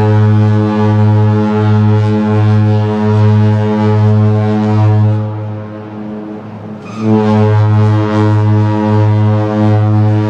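Cruise ship MS Artania's deep air horn (typhon) sounding long blasts as a departure salute. The tone eases back at about five seconds and swells up again at about seven seconds.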